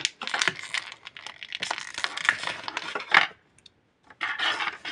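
Clear plastic blister packaging crinkling and clicking as hands work it open and handle it, stopping for under a second about three and a half seconds in before rustling again.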